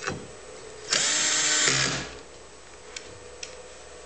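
Small electric screwdriver running for about a second as it drives a mounting screw in, its whine dropping lower as the screw seats. A short knock comes at the start and light ticks follow.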